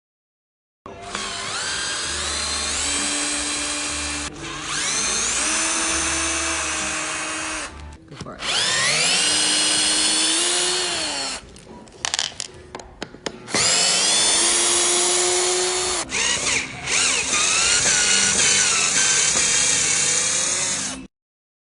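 Electric power tool motor running in several bursts of a few seconds each. Its whine rises as it spins up at the start of a run, then sags and recovers within runs, with brief stutters between them.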